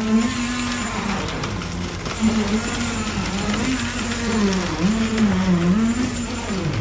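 Motor of concrete-pouring equipment running with a steady hum whose pitch wavers up and down, dipping several times in the second half.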